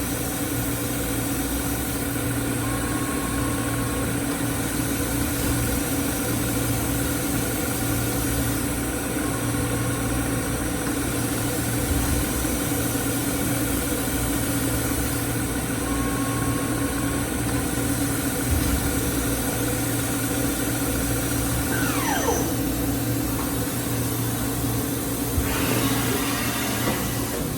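Steady hum of running industrial machinery, with a falling squeal near the end followed by a hiss.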